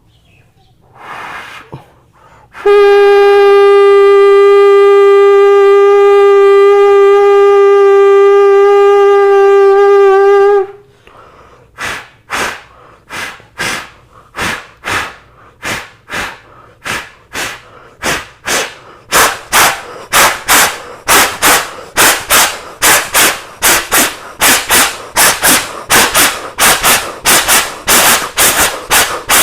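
Vocal mimicry of a steam train: a steady horn-like whistle held for about eight seconds, then rhythmic chugging puffs that start slow and speed up to about two a second.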